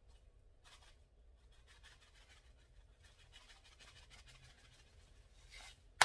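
Ground black pepper shaken from a shaker over a salad bowl: faint, light scratchy rattling of the grains and container. It ends with one sharp click.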